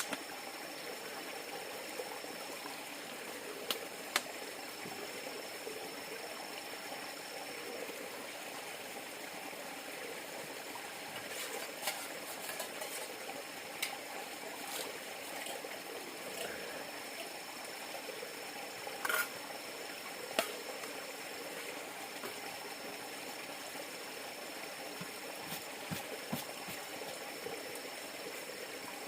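River water flowing steadily, with scattered light clicks and knocks.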